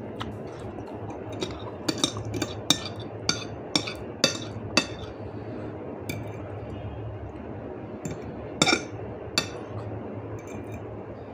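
Metal fork clinking and scraping against a plate while twirling noodles: a quick run of sharp clinks in the first five seconds, then a few more spaced out, the loudest a little before nine seconds in.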